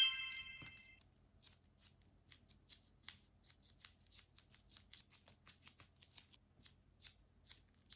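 Faint, irregular crackling ticks, a few a second, of a nano tape bubble being squished as its sticky tape surfaces cling and peel apart. A bright chime-like sound effect fades out within the first second.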